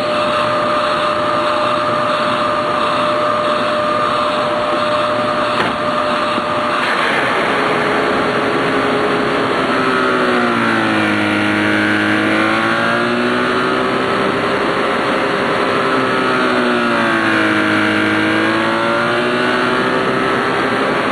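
Hoover Z400 bagless upright vacuum running, a steady motor whine over rushing air; after about seven seconds the motor pitch changes, then twice sags and climbs back as the vacuum works a different carpet. The owner takes its motor for a brushless one.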